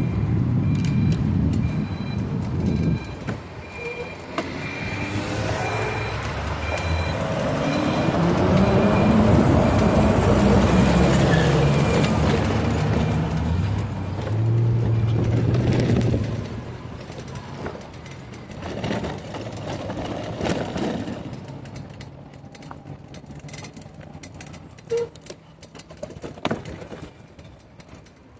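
A motor vehicle running and moving, its pitch rising and falling over several seconds and loudest in the middle. It then drops back to quieter noise with scattered clicks and knocks.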